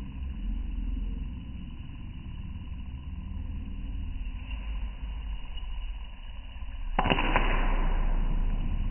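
Popcorn kernels heating in a stainless steel pan over a gas burner, with a steady low rumble. About seven seconds in, a kernel pops with a sharp crack, followed by a few quick smaller cracks.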